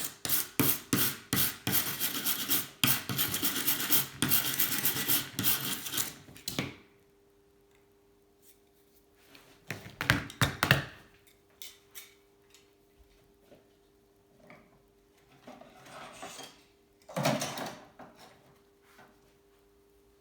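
Hand file rasping back and forth in rapid strokes on the inside of the freshly cut edge of an aluminium seat post. It stops after about six seconds, followed by two brief scrapes later on.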